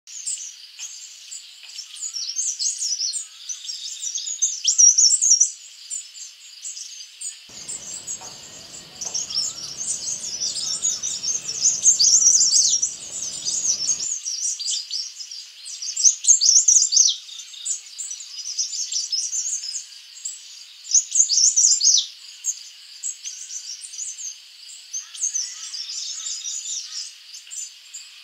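Birds chirping and singing in a busy chorus of quick high chirps and short falling whistles, over a steady high hiss.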